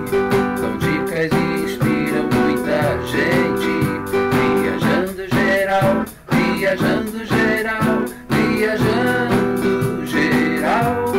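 A sung theme song over acoustic guitar strumming with a steady beat.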